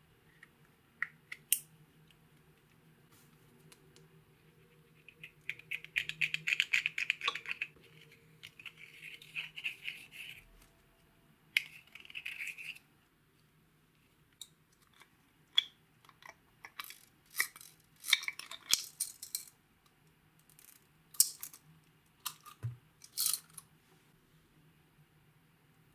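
A thin metal tool scraping pressed green eyeshadow out of its compact, in three scratchy bursts, followed by a run of short, sharp clicks and taps.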